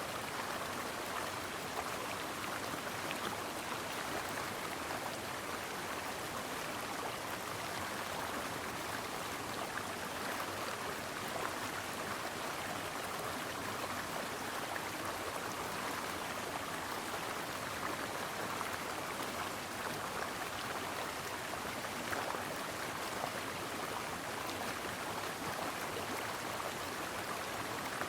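A stream flowing steadily over rocks, an even babbling rush of water.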